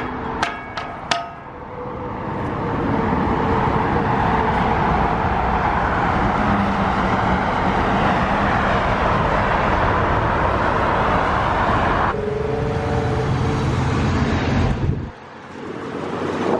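A few sharp ringing clicks, then loud road and traffic noise from a moving vehicle that swells and holds for about ten seconds, loud enough to drown out talk. It drops away suddenly about fifteen seconds in.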